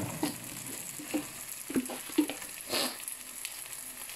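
Onions, tomatoes and spices frying gently in oil in a pan on a low flame, a faint steady sizzle. A few light knocks and a short scrape come from a spoon working in the pan.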